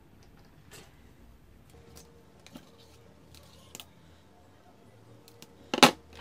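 Faint scattered clicks and small handling noises of wires and small components on a workbench, then one louder sharp click or knock near the end.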